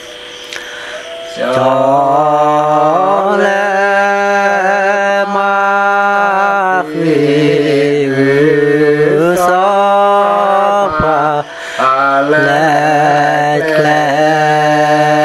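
A man chanting a Karen hta poem in long, drawn-out held notes, pausing briefly for breath between phrases.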